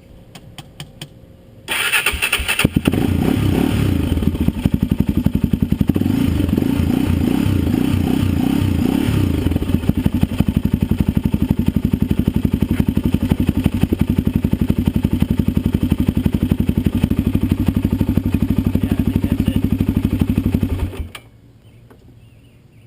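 Honda 400EX ATV's single-cylinder four-stroke engine starting, revving unevenly for several seconds, then idling steadily before it is shut off near the end.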